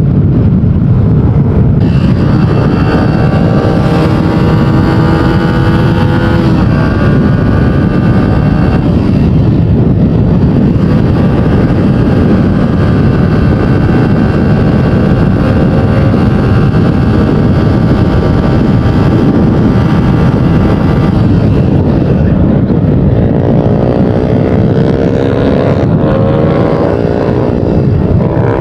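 Honda TMX125 Alpha's single-cylinder four-stroke engine running while riding at speed, under heavy wind and road noise. The engine note shifts about six seconds in and rises steadily near the end as the bike speeds up.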